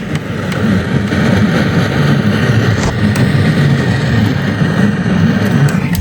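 Steady, loud radio static hiss from a receiver, with a flickering low rumble under it, which cuts off suddenly at the end.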